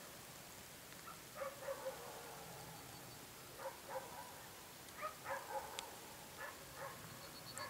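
Faint dog barking, short barks coming in runs of two or three, repeated several times.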